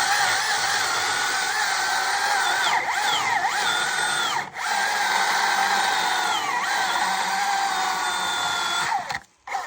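Milwaukee M18 FUEL battery chainsaw with an X-CUT chain running on its low setting and cutting into green gum wood. The steady motor whine sags in pitch as the chain bites, breaks off briefly about halfway when the trigger is let go, then picks up again and stops about a second before the end.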